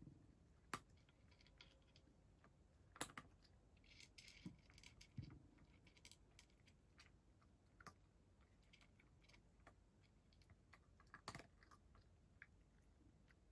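A cat crunching dry kibble from a shallow dish: faint, irregular crisp clicks, with a few sharper ones standing out.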